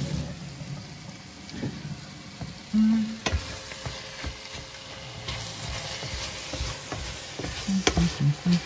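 Wooden spatula stirring chopped vegetables frying in a stainless steel pan: a soft steady sizzle with scattered clacks of the spatula against the pan. A short low hum sounds about three seconds in and a few more near the end.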